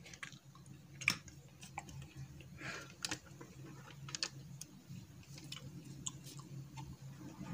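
Faint, scattered clicks and light rustling from hands handling wire leads and a small trigger diode while connecting them, over a faint steady low hum.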